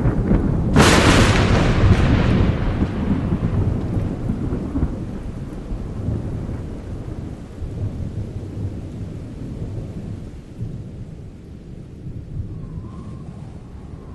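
A thunderclap: a sharp crack about a second in, followed by a long low rumble that slowly fades, over the steady wash of a rainstorm.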